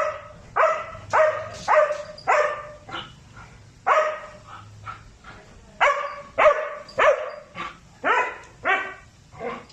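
Belgian Malinois barking repeatedly in sharp barks, about two a second, with a short break about four seconds in.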